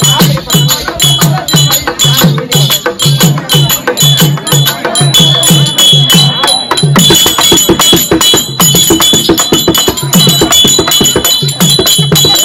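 Therukoothu street-theatre music: a hand drum playing a steady, fast rhythm under dense metallic jingling and clashing, with high held tones over the top.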